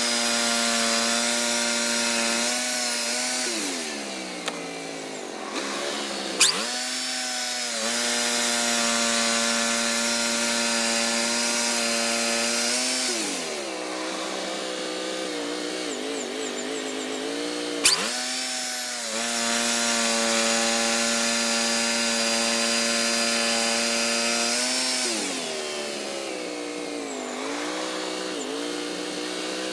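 Wood-Mizer LT40 Hydraulic portable band sawmill running: its engine holds a steady high note through each cut, then drops in pitch three times, about every eleven seconds, between passes, and climbs back. Two sharp clanks stand out as the loudest sounds, about six and eighteen seconds in.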